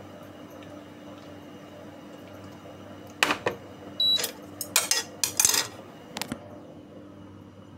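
Dishes and utensils being handled: a quick run of sharp clinks and clatters starting about three seconds in and lasting about three seconds, one clink with a brief ring.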